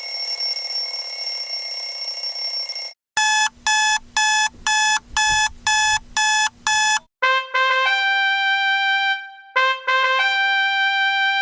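A run of alarm clock sounds. First a steady electronic alarm tone for about three seconds, then eight quick beeps, about two a second, then a trumpet-like alarm melody whose short phrase plays twice.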